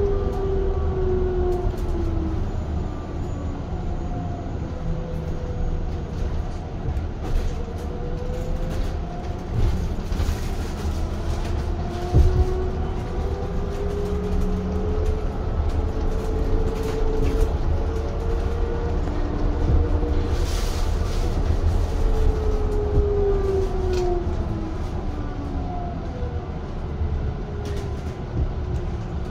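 Cabin noise aboard a moving Yutong E12 battery-electric bus: the electric drive's whine rising and falling in pitch as the bus speeds up and slows, over a steady low road rumble. Scattered rattles and clicks, with one sharper knock about halfway through.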